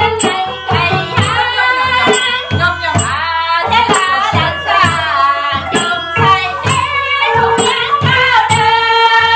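Traditional Lao music with a high sung melody over a steady droning note, and sharp drum and small-cymbal strikes about twice a second.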